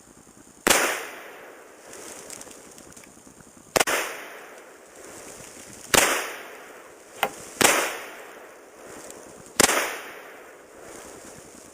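Five rifle shots from an SKS in 7.62×39, fired about two seconds apart at an even pace, each followed by an echo rolling away across the range. A shorter, quieter crack comes between the fourth and fifth shots.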